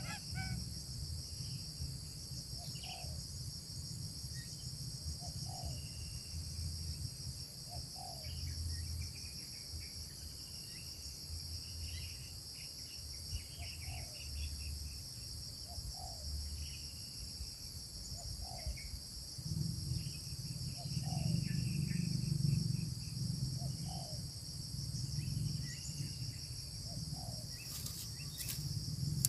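Steady high-pitched trilling of insects, such as crickets, with short bird chirps repeating every second or two, over a low rumble that grows louder about two-thirds of the way through.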